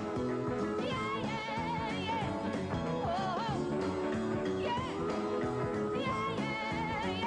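A rock and roll song performed by a band, with a woman singing lead and wavering vibrato on her held notes.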